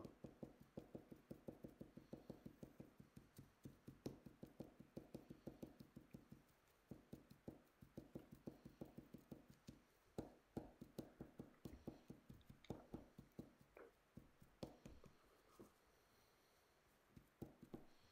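Faint rapid tapping of a felt-tip marker dabbing dots onto a fly's synthetic fibres, several taps a second, turning sparser and irregular after about seven seconds.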